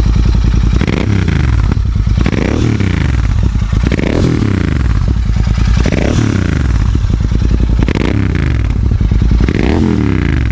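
Royal Enfield Continental GT 650's 648 cc parallel-twin, fitted with an AEW 102 stainless-steel exhaust with the dB killer removed, revved while parked: about six sharp throttle blips, each rising and dropping back to idle, one every couple of seconds.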